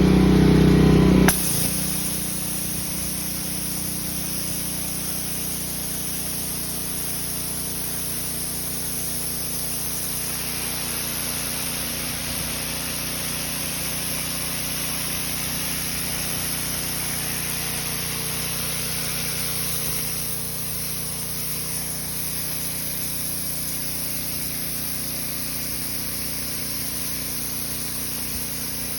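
Pressure washer running steadily, a motor hum under the hiss of its jet nozzle spraying onto a concrete driveway; louder for the first second or so.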